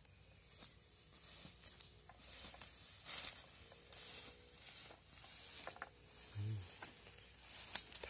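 Leaves and thin branches rustling and brushing, with scattered snaps and clicks, as someone pushes through dense undergrowth. A brief low-pitched voice-like sound comes about six and a half seconds in.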